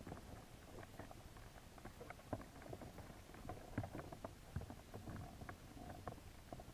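Underwater sound through a camera's waterproof housing: a low muffled rumble with scattered faint clicks and taps at an irregular pace, as American signal crayfish move about on a plastic basket trap.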